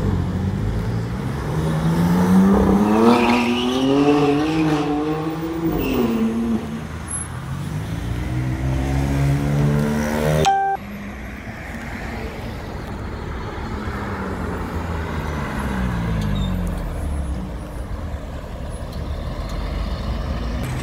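A car engine accelerating hard, its note climbing through the revs, followed by more engine sound that cuts off suddenly about ten seconds in. After that comes street traffic, with another vehicle passing and its engine note falling away.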